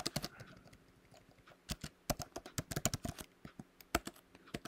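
Typing on a computer keyboard: a few keystrokes, a pause of about a second, then a quick run of keystrokes and a few more near the end.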